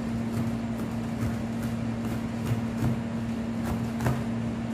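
A chef's knife chopping a frozen green vegetable on a plastic cutting board: even knocks about two or three a second, over a constant low electrical hum.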